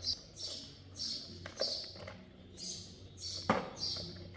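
A small bird chirping over and over, about twice a second, with a single sharp knock of metal or a tool about three and a half seconds in.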